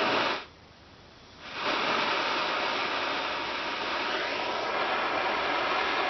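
Hand-held propane torch flame hissing as it heats the metal: a short burst at the start, a pause, then steady hissing from about a second and a half in.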